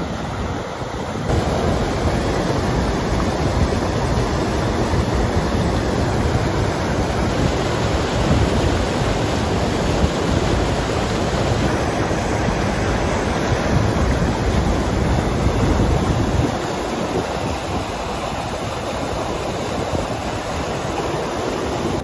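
Stream water rushing over rocks in a small cascade into a pool: a steady, loud rush with wind buffeting the microphone. It grows louder about a second in and drops back a little about three-quarters of the way through.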